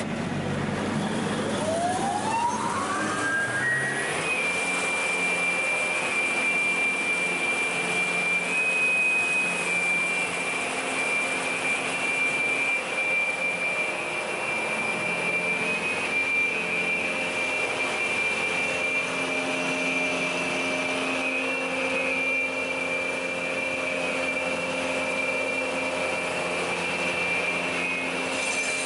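PAUL K3U800 multi-rip saw starting up: the motor spins the arbor of saw blades up to speed with a whine that rises over about three seconds, then runs steadily with a high, even whine.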